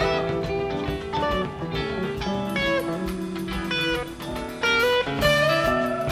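Background music led by guitar, with plucked notes that change quickly and a few short bends in pitch.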